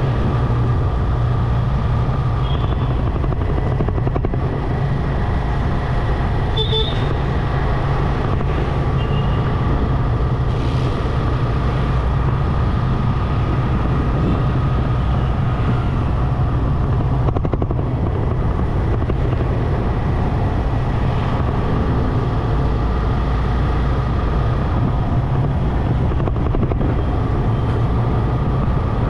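Motorcycle engine running steadily on the move, with a steady low rumble and wind on the microphone, amid street traffic.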